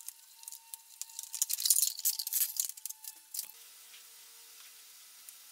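Light plastic rattling, clicking and rustling as gloved hands handle and fit a plastic drain funnel in place to catch radiator coolant. It is loudest around two seconds in and settles to quiet after about three and a half seconds.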